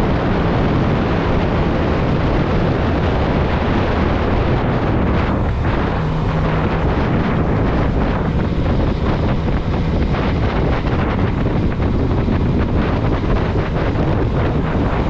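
Sport motorcycle engine running under way, with heavy wind noise on the microphone. About five seconds in the engine note briefly drops, then holds steady for a few seconds.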